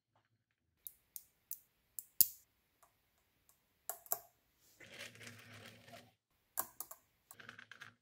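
Small neodymium magnet balls clicking sharply as they snap together and onto a magnet-ball sculpture. The clicks come singly, the loudest about two seconds in, with a second-long rattling scrape of balls against balls about five seconds in and a quick run of small clicks near the end.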